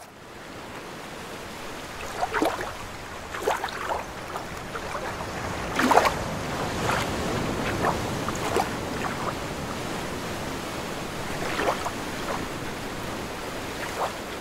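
Ocean waves: a steady wash of sea noise with irregular louder splashes of breaking water, the biggest about six seconds in.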